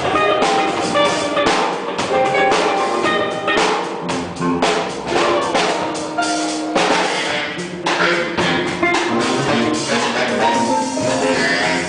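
Gospel orchestra playing an instrumental passage: sustained instrument notes over a steady drum kit beat.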